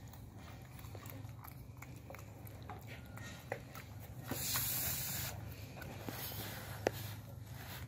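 A person blowing on hot food to cool it: one breathy hiss about a second long near the middle, over a steady low hum and a few faint clicks.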